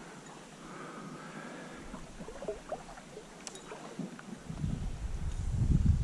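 Creek water sloshing and swishing around the angler as he wades the stream; a low rumble comes in about two-thirds of the way through and is loudest near the end.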